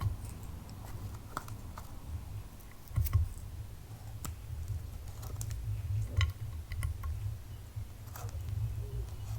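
Slime being squished and kneaded by hand, giving irregular small sticky clicks and crackling pops, with a louder squelch about three seconds in.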